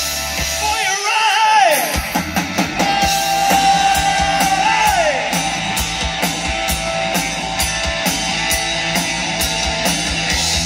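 Live 1980s-style rock band playing: electric guitars, bass and drums, with a singer's voice. The drums and bass come in about two seconds in, after a held note that falls away.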